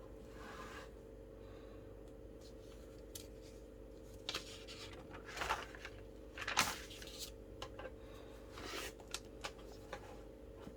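Paper rustling and short scratchy handling sounds, several brief bursts in the second half, over a steady low electrical hum.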